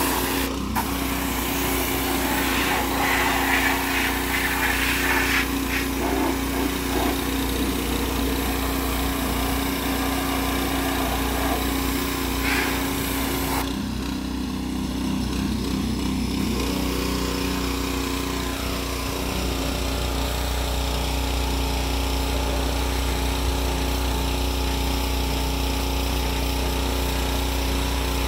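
Pressure washer's small engine running steadily while its wand blasts water onto a truck cab with a hissing spray. The spray eases off for a couple of seconds about halfway through while the engine keeps running.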